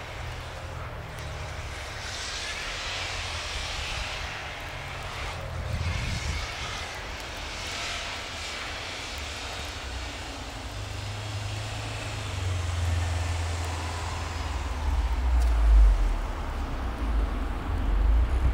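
Subaru STi's turbocharged boxer engine running hard as the car drifts on snow, heard at a distance, with the hiss of spinning tyres throwing up snow. A deep low rumble builds and grows louder in the second half.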